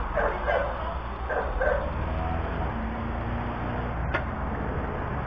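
A dog barking a few times in the first two seconds, over a steady low rumble of street noise, with a single sharp click about four seconds in.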